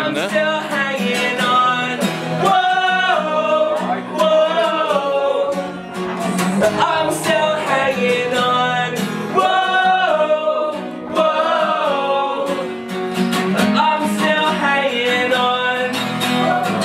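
A man singing long held notes over a strummed acoustic guitar.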